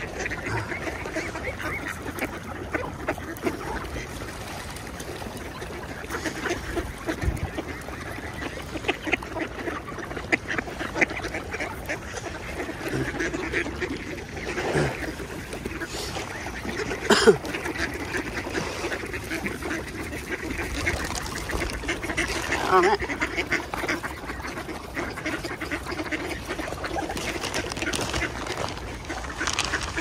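A large flock of ducks quacking continuously, mixed with some honking calls. One sharp, louder sound stands out about seventeen seconds in.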